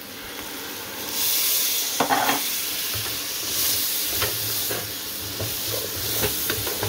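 A splash of water hitting a hot pan of fried onions and spices, setting off a sizzling hiss about a second in that keeps going, with a spatula stirring and scraping the nonstick pot.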